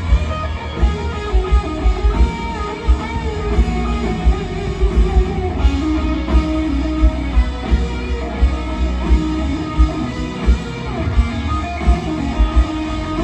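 Live band playing an instrumental passage of a country-rock song, with electric guitar to the fore over heavy, repeated kick-drum hits.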